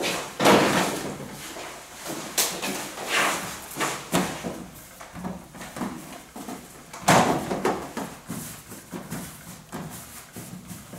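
Irregular knocks and thumps of hands and dough working on a metal bakery table, loudest about half a second in and again about seven seconds in, with quieter rubbing and handling between.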